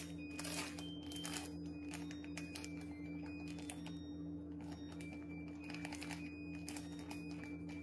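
Plastic bag of refrigerated shredded hash browns crinkling as it is handled and shaken, an irregular run of crackles.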